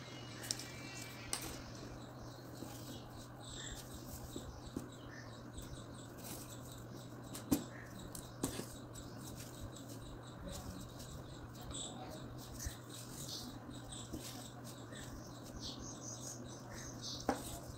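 Quiet room tone with a steady low hum, broken by a few soft clicks and rustles as needle and thread are pulled and looped around a jute-wrapped wire-hanger ring.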